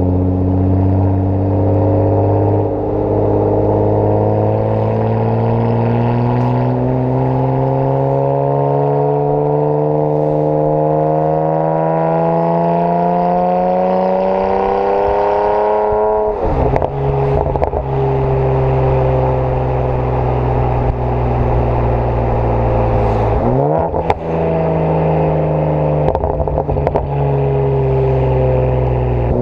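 Decatted BMW 335i twin-turbo 3.0-litre straight-six through an AC Schnitzer quad exhaust, its revs climbing slowly and steadily for about sixteen seconds. The revs then drop sharply with a spatter of crackles, hold steady, dip briefly again with more crackles about 24 seconds in, and start rising right at the end.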